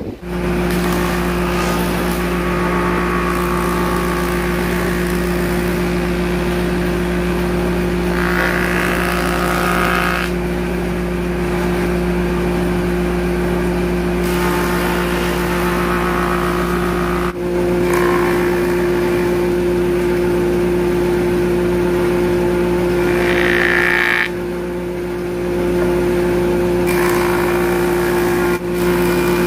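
Stationary jointer-planer running with a steady hum, its cutterhead shaving old weathered boards pushed across the table; the cutting grows louder and brighter about eight seconds in and again near twenty-three seconds.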